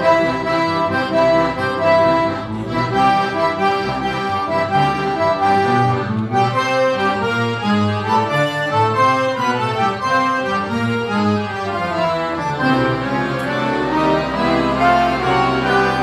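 An accordion orchestra playing together: many accordions sounding a busy melody over chords and a moving bass. About three-quarters of the way through, the bass settles onto a long held low note.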